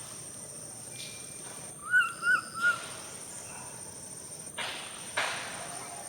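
A baby monkey crying: three short, high-pitched squeals in quick succession about two seconds in, each rising then falling. Near the end come two short noisy bursts.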